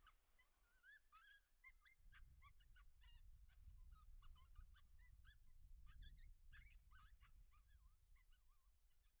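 Faint chorus of many short, pitch-bending animal calls, one after another, over a low rumble of wind that comes up about two seconds in.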